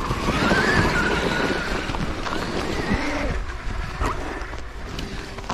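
Traxxas X-Maxx 8S RC monster truck's brushless electric motor whining, its pitch wavering up and down with the throttle for about three seconds before fading, with a short rising whine about four seconds in, over a steady low rushing noise.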